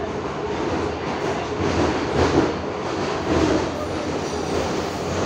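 Running noise inside a Soviet-built 81-71 metro car under way in the tunnel: a steady rumble from the wheels and running gear, swelling louder a couple of times about two and three and a half seconds in.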